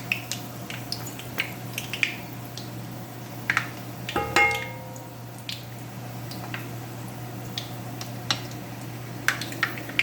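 Whole spices frying in hot peanut oil, giving scattered pops and crackles over a steady low hum. About four seconds in, a metal utensil strikes the pot with a brief ringing clink.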